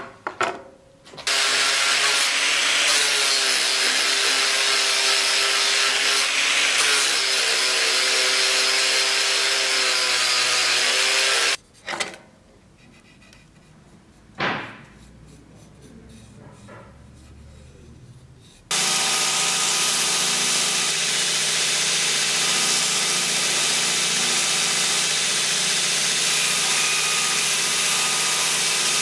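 A power tool runs steadily on wood for about ten seconds, then stops. After a quiet stretch with one short scrape, a belt grinder runs steadily, sanding the wooden scabbard core.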